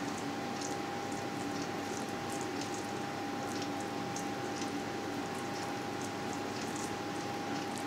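Steady hiss with a thin, constant high hum, and faint scattered soft clicks as a spoon spreads minced-meat filling over thin stretched dough.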